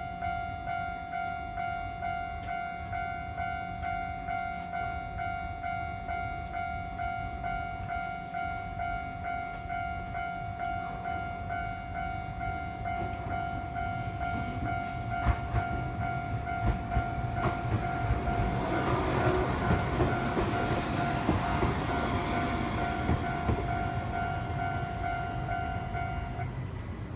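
Japanese level-crossing warning bell ringing in a steady repeating rhythm while a Tokyu Setagaya Line train approaches and passes. The train's rumble and wheel clicks build from about halfway through and are loudest about three-quarters of the way in, and the bell stops shortly before the end.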